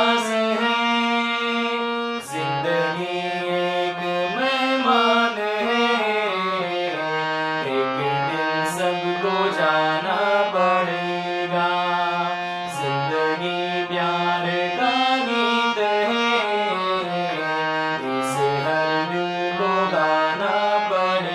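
A man singing a melody while accompanying himself on a harmonium. The harmonium's reeds hold steady notes under his voice, which glides between pitches.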